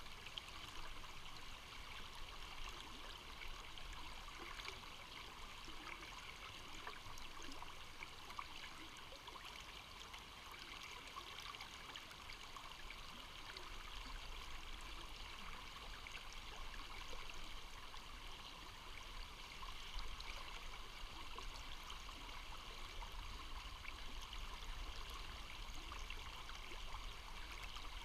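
Steady rush of a tailwater river's current, with water rippling and trickling.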